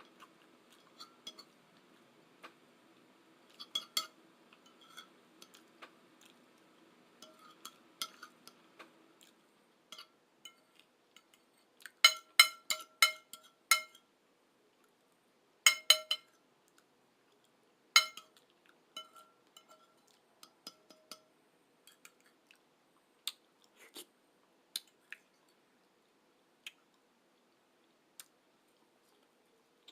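Cutlery clinking against dishes while eating, with a quick run of ringing clinks about halfway through and two more shortly after, and quieter chewing and scraping clicks between.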